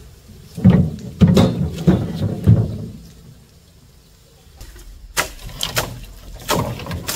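A series of knocks: about four dull thumps close together in the first few seconds, then a pause, then a few sharper, clacking knocks near the end.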